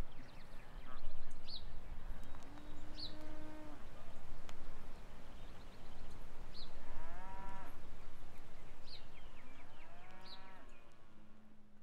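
Several drawn-out, low animal calls of about a second each, like livestock lowing, with short high bird chirps repeating between them; everything grows fainter toward the end.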